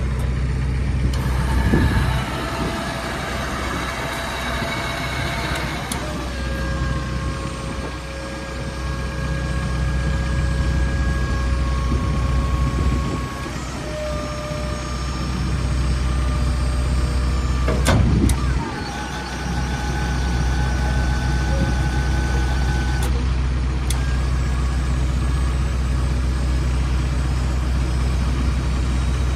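Ford F450's Power Stroke turbo-diesel idling steadily while the truck-mounted Auto Crane whines in several stretches as it is run from a handheld control box, with one sharp clunk about two-thirds of the way through.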